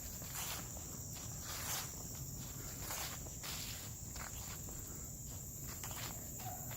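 Steady high-pitched chorus of insects, with footsteps at a walking pace.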